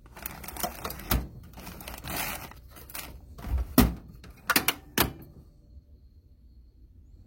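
Metal toolbox drawer being handled, with a series of knocks and clatter of loose hardware; the loudest knock comes about four seconds in and it all stops about a second later.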